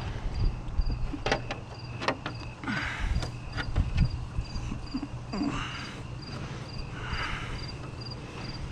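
A cricket chirping steadily, about two chirps a second, over a low steady hum. Sharp metal clicks, knocks and short scrapes come from tools and bolts being fitted back on the engine bay.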